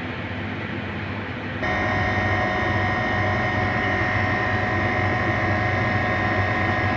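Walk-in chiller's refrigeration unit running steadily, a low compressor hum with fan noise, after a compressor replacement. About a second and a half in it turns abruptly louder, with several steady whining tones over the hum.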